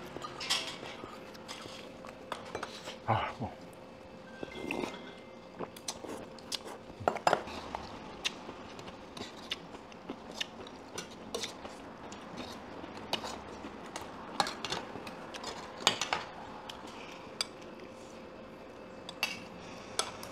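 Metal spoons and a ladle clinking and scraping against stainless steel rice bowls and a stew pot in irregular short knocks, with chewing between them. A faint steady hum runs underneath.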